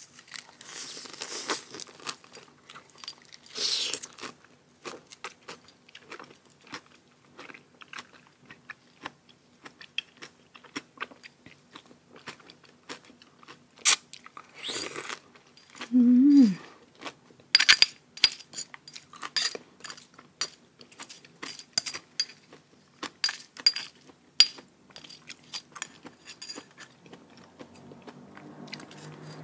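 Close-up chewing and crunching of a mouthful of raw oyster topped with fried shallots and lead tree shoots, with wet mouth clicks throughout. A brief falling hum about sixteen seconds in.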